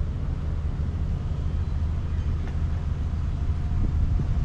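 Steady low rumble of the tow vehicle slowly backing the boat trailer in for launch.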